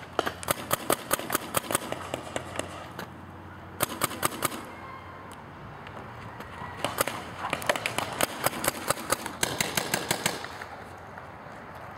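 Paintball markers firing rapid strings of sharp pops, several shots a second, in bursts: at the start, around four seconds in, and again from about seven to ten and a half seconds, with short lulls between.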